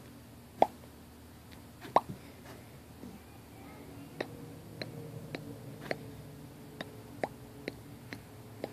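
About ten sharp, short clicks at irregular intervals, a little closer together in the second half, over a faint steady low hum.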